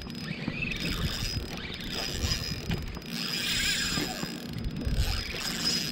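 Small 1000-size spinning reel working under load, its mechanism clicking as a hooked striped bass pulls line, with irregular handling bumps.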